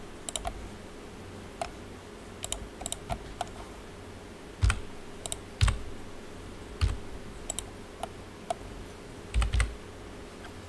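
Computer keyboard keys and mouse buttons pressed at an irregular pace, about fifteen short clicks, some with a dull thud, as shortcut keys are used to extrude and move faces in 3D modelling software. A faint steady hum runs underneath.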